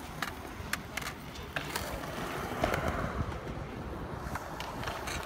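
Skateboard wheels rolling on smooth concrete with a low rumble, and scattered sharp clacks of boards hitting the ground.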